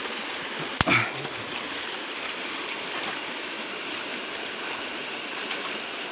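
Shallow creek water running steadily, with one sharp knock about a second in.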